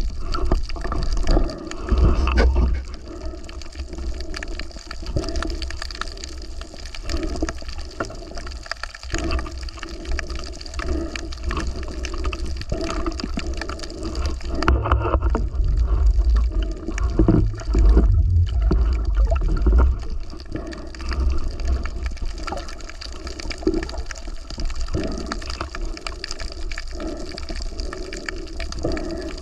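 Water sloshing and gurgling close to the microphone, with crackling throughout and heavier deep surges about two seconds in and again between about fifteen and twenty seconds in.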